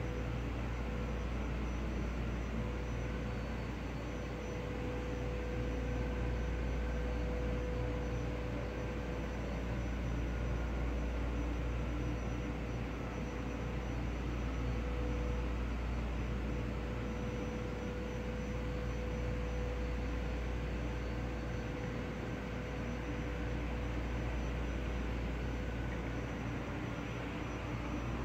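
Steady low rumble with a constant mid-pitched hum running through it, swelling slightly and easing again without any sharp event.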